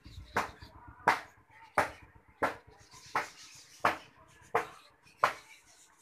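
A sharp tap or knock repeating at an even pace, about every 0.7 seconds, some nine times.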